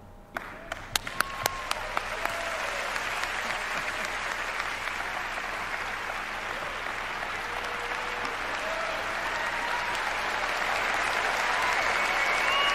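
Applause: a few separate claps, then a dense crowd applause that builds and grows louder, with scattered short calls from the crowd over it.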